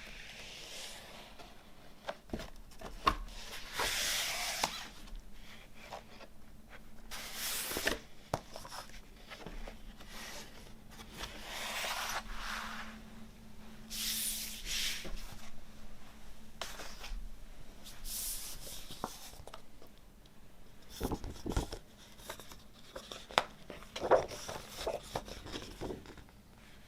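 Vinyl record packaging being handled and unpacked: repeated rustling and rubbing swishes of about a second each, with scattered taps and a cluster of knocks near the end.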